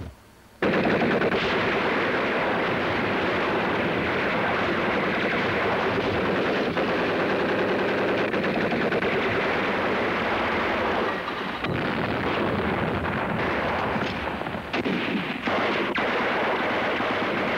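Sustained battle gunfire, rapid machine-gun fire mixed with other shots, breaking out suddenly about half a second in and keeping up with only brief lulls later on.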